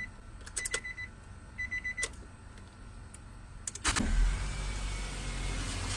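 Ignition key clicks and a high dashboard warning chime beeping in short pulses, then the Nissan X-Trail's engine starts about four seconds in and settles into a steady idle.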